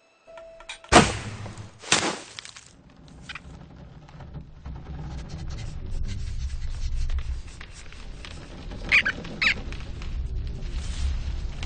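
Film sound effects: a sharp crack about a second in and another about a second later, then a low rumble that slowly swells, with two short high squeaks near the end.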